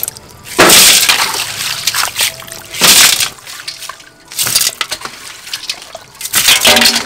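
Water pouring and splashing over sliced mango in a metal bowl and colander, in four separate bursts, with ice cubes clinking among the slices.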